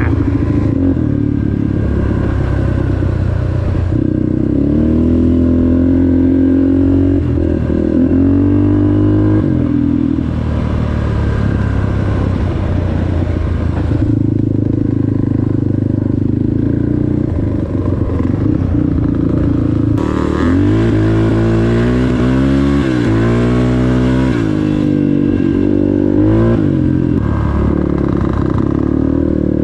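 Off-road vehicle engine running under way, its pitch climbing and falling several times as the throttle is opened and eased off.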